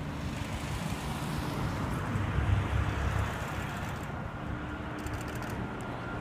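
Street traffic noise: a steady wash of road noise, with a low rumble that swells briefly about two and a half seconds in.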